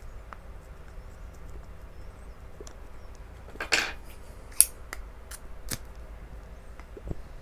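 Light clicks and taps of a pipe and a metal pipe tamper being handled, with a brief scraping rush a little over halfway through and a sharp click just after it.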